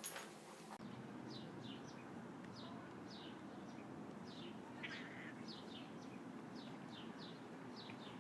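A small bird chirping again and again, short falling chirps about two a second, starting about a second in, over a steady low background noise.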